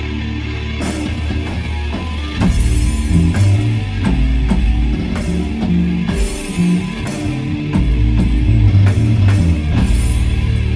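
Rock band playing live: sustained guitar and bass, with the drum kit coming in about a second in and the band getting louder after about two and a half seconds, cymbal crashes recurring.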